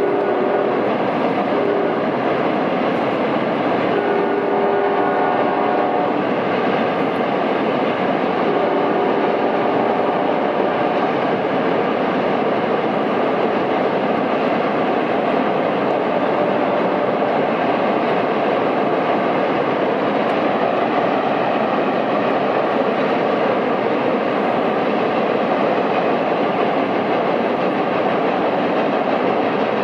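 Freight cars rolling steadily across a steel truss bridge, a continuous loud rumble and rattle of wheels on rail. A locomotive horn sounds three times in the first eleven seconds as a chord of long steady tones.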